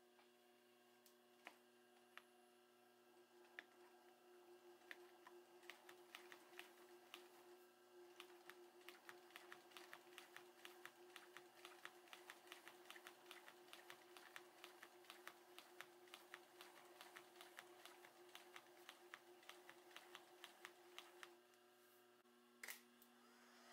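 Industrial sewing machine stitching upholstery material over foam and thin cardboard, with a faint motor hum under the needle's clicking strokes. It starts with a few single stitches, runs into a steady stream of even clicks, then stops shortly before the end, followed by one sharper click.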